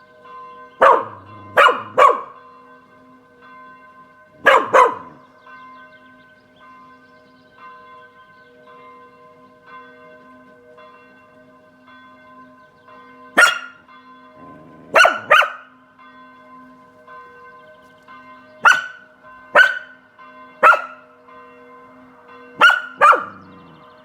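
Spanish Water Dog barking in short clusters, about a dozen barks, over church bells ringing steadily.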